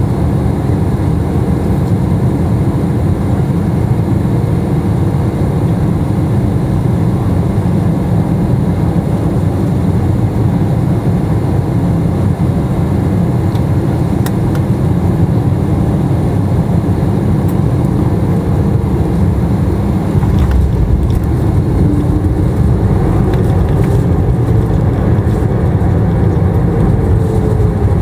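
Cabin noise of an Airbus A320neo with Pratt & Whitney PW1100G geared turbofans on short final: a steady, loud low rumble of engines and airflow. About 20 seconds in, the rumble deepens and grows louder as the plane touches down and rolls on the runway, and faint engine tones glide in pitch near the end.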